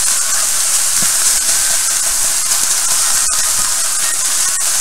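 Sliced onions frying and sizzling in a stainless steel skillet as they start to brown: a loud, steady hiss.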